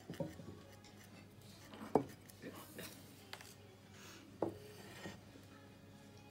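A few light knocks and clinks of a small unglazed ceramic bowl being handled against the work table, with some faint rubbing; the sharpest knock comes about two seconds in.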